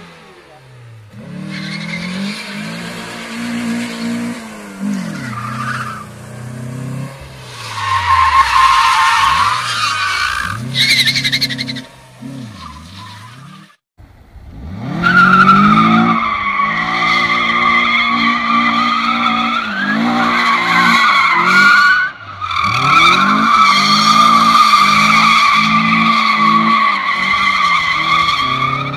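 FSO Polonez drifting: its engine is revved up and down hard while the tyres squeal. The sound cuts out briefly about halfway, and in the second half a long tyre squeal runs almost unbroken over the held revs, with a short gap midway.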